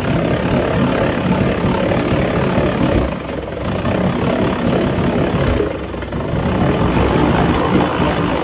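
Old Mariner 20 hp two-cylinder two-stroke outboard engine running in a test barrel, just started, its note sagging briefly twice.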